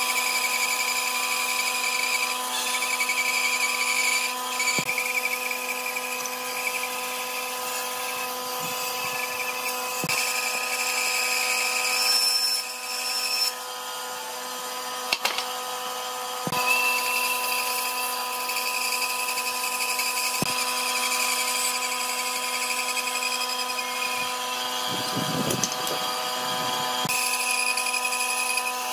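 Electric power tool running while working wood: a steady motor hum and whine that shifts in tone a few times, with a handful of sharp knocks.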